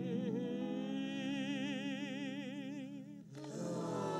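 Song from an animated musical: a singer holds the last word of a sad verse on one long note with wide vibrato, over a sustained accompaniment with violin. About three seconds in, the note ends and falling sliding tones follow.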